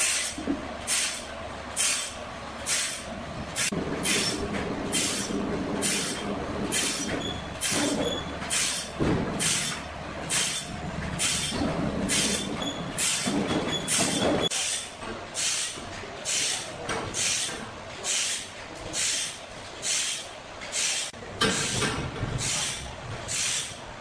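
Machinery running with a regular hissing stroke, about one and a half strokes a second, over a lower humming drone that grows stronger for a stretch in the middle.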